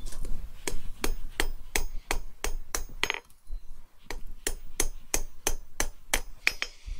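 Hand hammer striking the red-hot end of a flat steel bar on an anvil, about three blows a second with a short pause about halfway, rounding off the corners of the bar's end.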